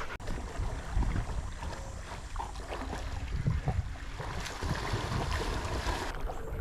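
Wind rumbling and buffeting on the microphone over a steady outdoor hiss.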